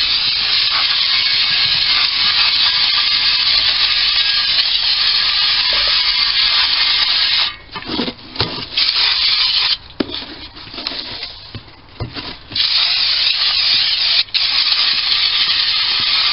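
Aerosol can of brake cleaner spraying onto a metal baseplate to degrease it before primer: one long steady hiss of about seven seconds, then a stretch of short bursts and handling knocks, then another long hiss near the end.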